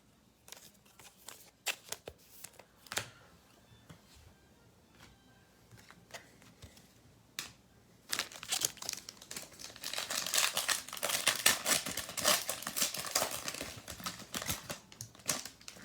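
A trading-card pack wrapper being torn open and crinkled, the crinkling dense through the second half, after scattered light clicks and taps of cards being handled.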